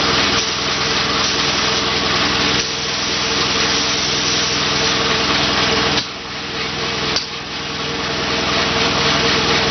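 Air spray gun hissing as it lays down the final coat of paint on a car door, over the steady hum of a running air compressor. The hiss drops away for a moment about six seconds in, then comes back.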